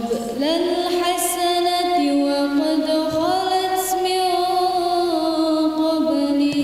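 A girl's voice reciting the Quran in melodic tilawah style through a microphone, drawing out long held notes with slow slides between pitches.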